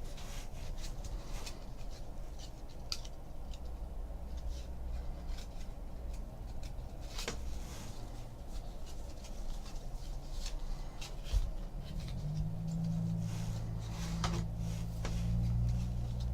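Trading cards and foil pack wrappers being handled: scattered soft clicks, snaps and rustles as cards are shuffled and slid. A low steady hum comes in about twelve seconds in.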